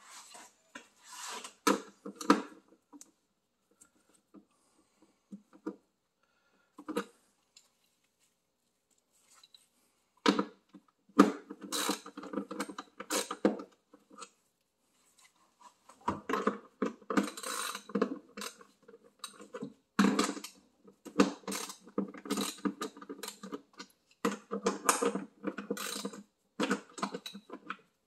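Ratchet wrench with a 10 mm socket clicking in several bursts as bolts are undone, with scattered single clicks and short pauses between the bursts.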